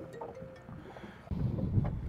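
Wind rumbling on the microphone over open water, low and quiet at first, then louder from about halfway through.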